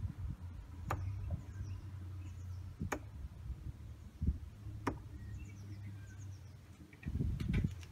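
Three steel-tip darts thudding one by one into a Winmau Blade 4 sisal bristle dartboard, about two seconds apart. Near the end there is a louder burst of knocks and rustling.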